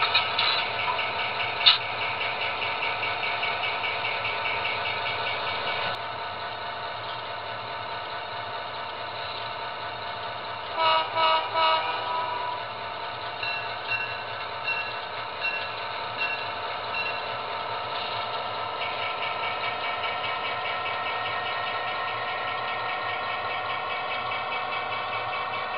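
DCC sound decoder in an HO scale model train playing a running diesel locomotive engine through its small speaker as the train moves, with three short horn toots about eleven seconds in. A string of short higher tones follows.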